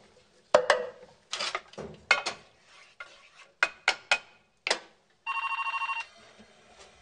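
A metal utensil clanking against a cooking pot on the stove several times, then a telephone ringing once with a fast electronic trill about five seconds in.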